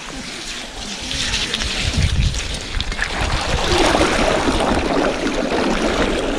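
Bicycle tyres splashing and churning through a muddy puddle, getting louder about two-thirds of the way in as the wheel goes deeper into the water.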